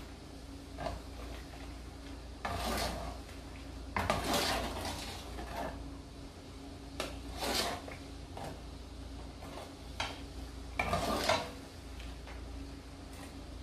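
A metal ladle stirring sliced onions in vinegar in a metal cooking pot, scraping and clinking against the pot in about five separate strokes a few seconds apart.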